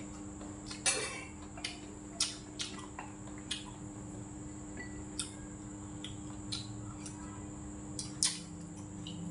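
Chopsticks and a spoon clinking against a stainless-steel rice bowl and dishes while eating: about ten sharp, irregular clicks, the loudest about a second in, over a steady hum.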